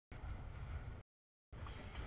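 Double-stack intermodal freight train rolling past: a low rumble of wheels on rail. The audio drops out completely for about half a second in the middle, so it comes in two short chunks.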